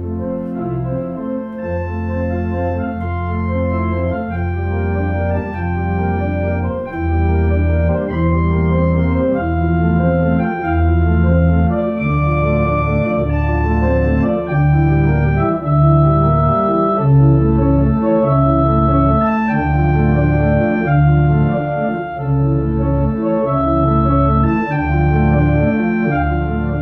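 Two-manual home electronic organ playing a slow piece: held chords with a melody on top over a strong bass line. About halfway through, the bass changes to short, evenly repeated notes.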